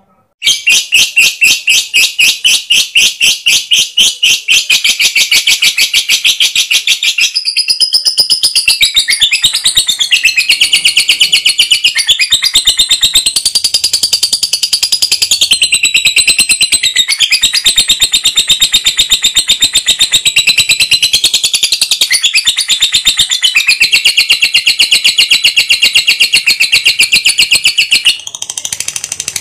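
Lovebird singing a long, unbroken chattering trill of rapid high notes, many per second, dipping briefly near the end.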